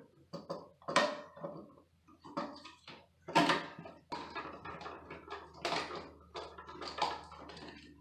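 Handling noise from wiring a GFCI outlet: a string of irregular clicks and knocks as the outlet's plastic body and a screwdriver are worked, with the neutral wire pushed into its terminal and the terminal screw tightened.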